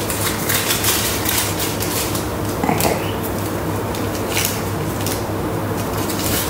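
Light clicks and knocks of a plastic Varoma steaming tray and dish being handled as soft bao buns are set into it, over a steady background hum and hiss.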